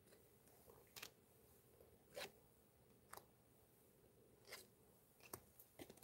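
Faint, scattered slides and flicks of trading cards being leafed through by hand, about six short scrapes with near silence between them.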